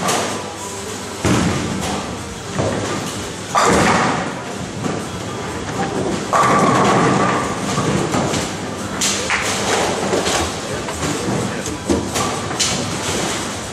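Bowling alley at play: bowling balls thudding onto the lanes and rolling, and pins clattering, as a string of knocks and crashes, the loudest about three and a half and six seconds in, over a murmur of voices in the hall.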